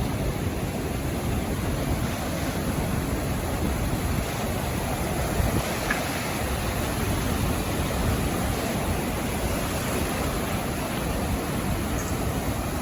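Sea waves breaking and washing up onto a sandy beach: a steady wash of surf without distinct single crashes.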